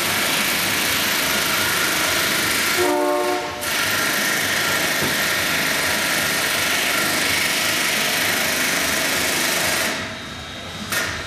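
An air-powered hand tool runs with a steady hiss, pausing briefly about three seconds in and stopping near the end.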